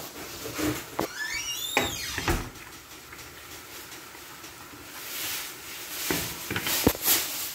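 Chin chin dough pieces deep-frying in hot oil in a wok, a steady sizzle, while a plastic slotted spoon stirs them. The spoon scrapes with squeaky rising sounds about one to two seconds in and knocks against the wok a few times.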